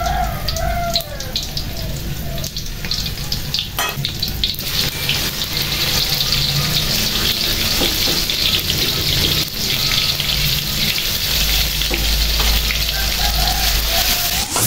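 Green onion and chili paste frying in hot oil in a steel wok: a steady, crackling sizzle that gets louder in the second half and is stirred with a metal spatula near the end. A rooster crows briefly at the start.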